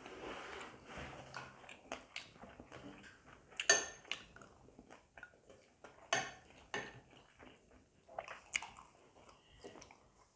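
Chopsticks and spoons clicking now and then against ceramic rice bowls and plates during a meal, with quiet eating and chewing. The loudest clicks come about four and about six seconds in.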